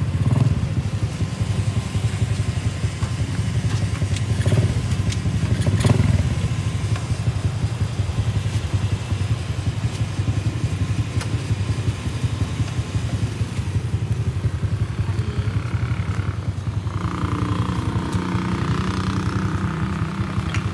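A motorcycle engine idling steadily close by, a fast even low pulsing. A second, higher engine note comes in about three-quarters of the way through.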